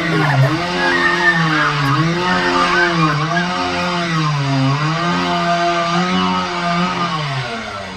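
Chainsaw engine revving hard, its pitch sagging and climbing again every second or so as the throttle is blipped.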